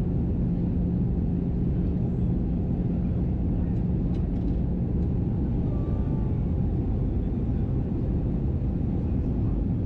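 Airbus A320 cabin noise in flight: a steady low rumble of engines and airflow heard from inside the cabin, with a steady low hum.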